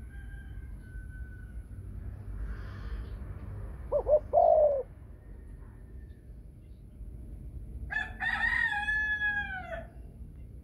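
A caged spotted dove gives a short, loud coo of a few quick low notes ending in a held note. About four seconds later a rooster crows once, a longer, higher call that rises and then falls away.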